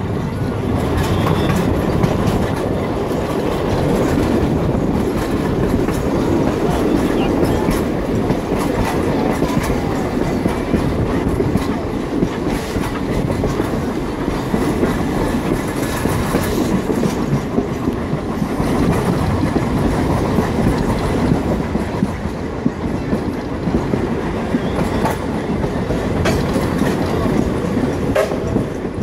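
Heritage passenger train on the move, heard from a carriage window: steady running noise with the carriage wheels clicking over the rail joints.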